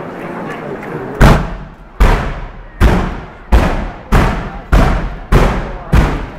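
Firework bangs going off in a rapid, regular series: about a second in, loud blasts begin at roughly one every 0.7 seconds, about eight of them, each followed by a short echo.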